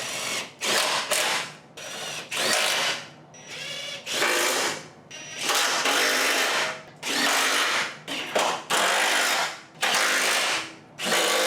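Hand-held power tool driving the reaction-arm bolts home in about a dozen short runs, each under a second, with brief pauses between; a few runs begin with the motor's whine rising.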